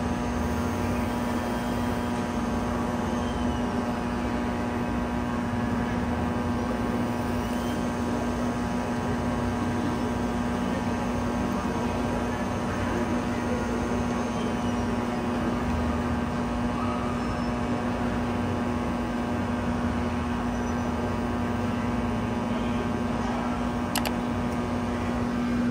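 Cotton candy vending machine running as it spins a ball of floss: a steady motor hum with several steady whining tones over an even rush of noise. A single sharp click near the end.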